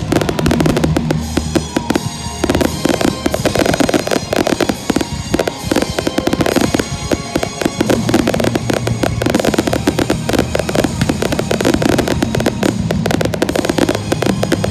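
Fireworks bursting in a dense, rapid, continuous barrage, the closing finale of the display, over the show's music soundtrack.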